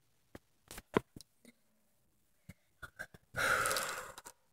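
Phone microphone handling noise: scattered clicks and knocks as the phone is moved against fleece fabric, with a sharper knock about a second in, then about a second of loud rustling noise near the end.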